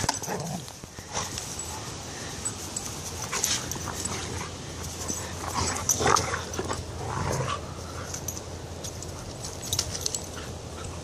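Two dogs play-fighting, making short scattered vocalizations, a few with a bending pitch around the middle, among scuffling sounds.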